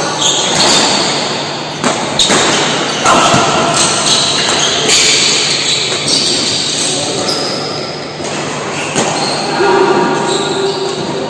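Badminton rally: rackets strike the shuttlecock with a string of sharp hits, echoing in a large hall.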